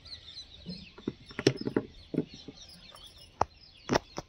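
Sharp snaps and clicks of chrysanthemum flower stems being picked by hand, a cluster about a second and a half in and two loud ones close together near the end, with small birds chirping faintly in the background.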